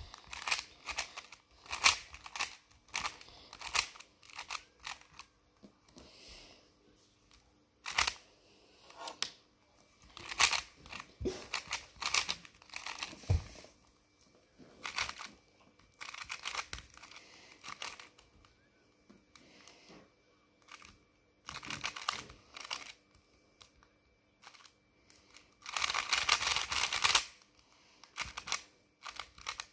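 3x3 Rubik's cube being turned by hand, its plastic layers clicking and snapping in irregular runs with short pauses, and a fast flurry of turns near the end.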